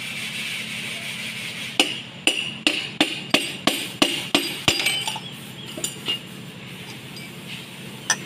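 A run of about nine sharp metallic clinks in an even rhythm, about three a second, starting nearly two seconds in and stopping before the halfway point, with one more clink near the end. A steady low hum runs underneath.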